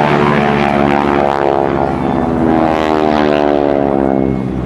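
A North American SNJ (T-6 Texan) trainer's nine-cylinder Pratt & Whitney R-1340 radial engine and propeller are loud as the plane flies past. Its pitch drops over the last couple of seconds as it goes by.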